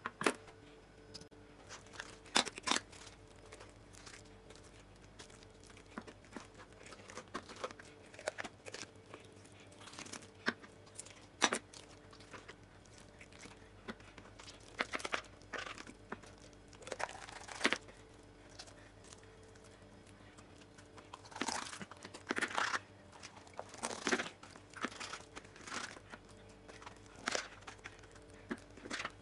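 Raw whole chicken being jointed by hand and with a kitchen knife on a plastic cutting board: irregular tearing of skin and meat, with sharp knife knocks and clicks on the board scattered through.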